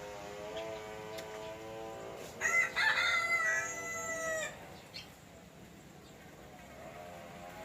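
A rooster crows once, loudly, for about two seconds, starting about two and a half seconds in. Before it, a steady low drone runs for a couple of seconds.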